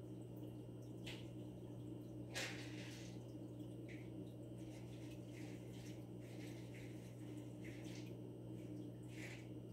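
Aquarium pump humming steadily, with scattered soft water trickles and bubble pops and one slightly louder splash about two seconds in.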